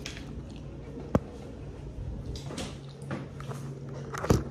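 Clicks and knocks of things being handled: one sharp click about a second in and a few louder knocks near the end, over a steady low hum.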